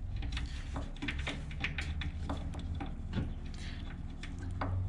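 Light, irregular metal clicks and taps of a nut and washer being fitted by hand onto a bolt through a motorcycle frame bracket, over a low steady hum.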